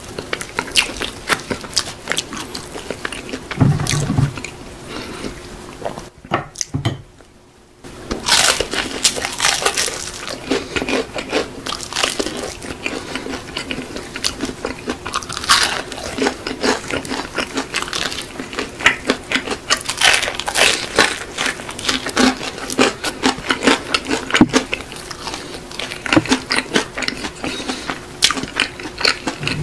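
Close-miked biting and chewing of crispy fried chicken: crunchy bites of the coating and wet chewing, full of irregular crackles and clicks. There is a short lull about six seconds in.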